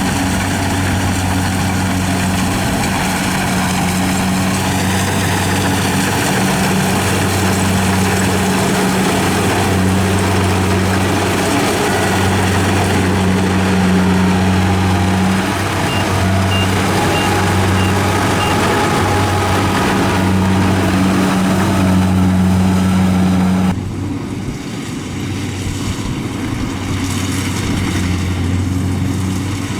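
Engine of a rice harvesting machine running steadily under a broad mechanical clatter. The higher clatter falls away near the end, leaving a lower engine hum.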